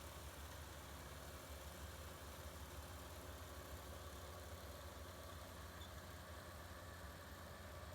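An engine running steadily: a faint, even low hum with no change in speed.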